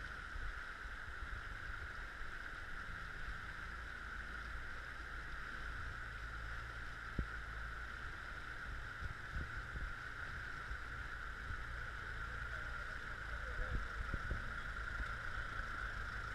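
Steady rush of a shallow river's flowing water, with a Fiat tractor's engine running low underneath and growing a little louder near the end as the tractor comes close; a single knock about halfway.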